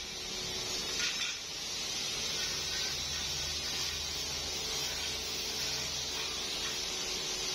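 Motor-driven buffing wheel spinning against an iron pipe being polished, a steady hiss over the hum of the machine, the low hum growing stronger about three seconds in.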